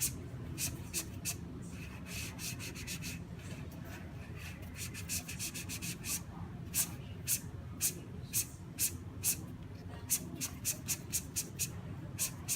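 Orbital sander running with a steady low hum and irregular sharp clicks, sometimes coming in quick runs: it is not spinning smoothly.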